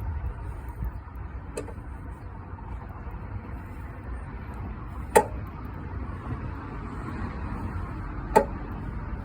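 Hand-cranked car jack being turned slowly to raise a car, giving three sharp clicks a few seconds apart over a steady low rumble.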